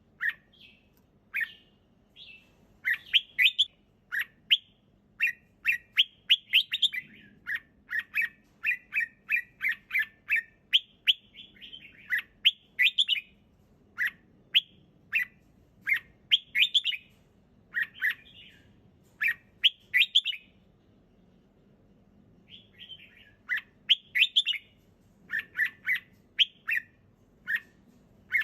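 Red-whiskered bulbul singing: short, quick chirpy phrases repeated over and over, with a brief pause about three-quarters of the way through.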